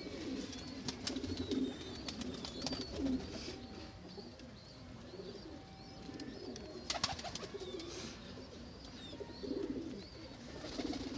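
Domestic pigeons cooing repeatedly in a loft, a low, rolling warble. A few sharp knocks from handling break in, the loudest about seven seconds in.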